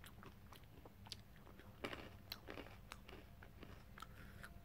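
Faint crunching and chewing of fiery chilli coated crispy peanuts, a scattering of small crackles close to the mouth.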